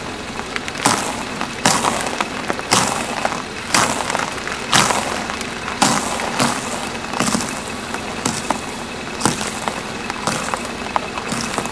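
Stacks of round crackers crunching and crackling as a car tyre crushes them, in sharp bursts about once a second, a dozen or so times, over the car's steady engine noise.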